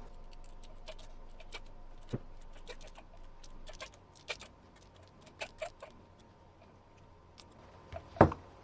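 Scattered light clicks and ticks of a small hex driver bit and plastic RC kit parts being handled while a small screw is driven, with a sharper knock near the end.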